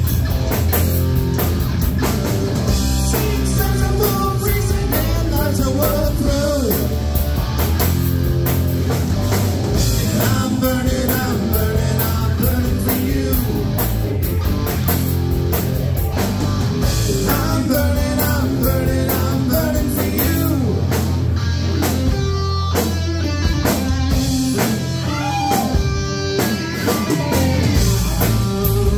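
Live rock band playing loud: a male singer over electric guitars, electric bass and a drum kit.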